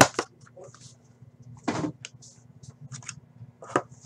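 Handling noises from unpacking a box of trading cards: a sharp clack at the start, a longer scraping slide a little before the middle, and a few light clicks of hard clear plastic card cases near the end.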